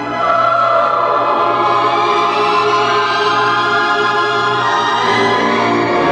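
Orchestral film music with a choir singing long held notes; it swells a little louder just after the start.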